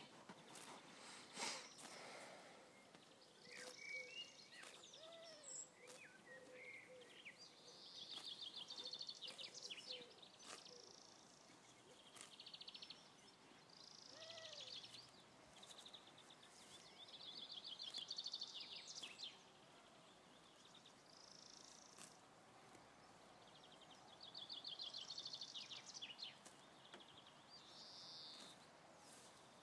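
Faint outdoor ambience with small birds twittering in short trilled bursts every few seconds, and a few soft clicks.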